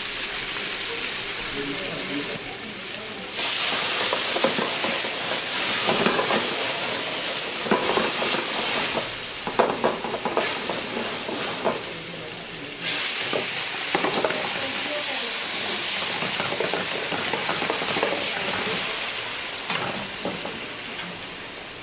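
Sliced artichokes sizzling in oil in an aluminium sauté pan, with a spoon scraping and clinking against the pan as they are stirred. The sizzle steadies into a continuous hiss, and the clinks come thickest in the middle.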